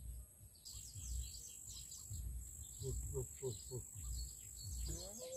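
Outdoor ambience: many quick bird chirps over a steady high-pitched insect drone, with low rumbling underneath.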